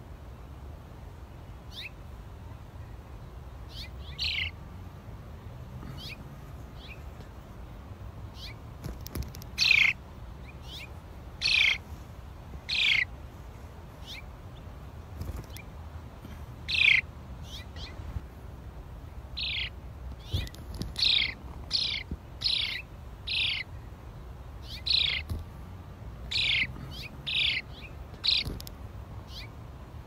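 House sparrow chirping: short single chirps that fall in pitch. They come only now and then at first, then about one a second in the second half, over a steady low background rumble.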